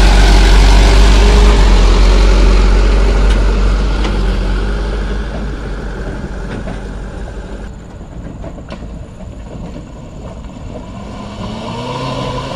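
Mitsubishi Fuso Canter light truck's diesel engine running loudly up close under load, then fading as the truck pulls away up the rough track. Near the end a smaller vehicle's engine grows louder and rises in pitch as it approaches.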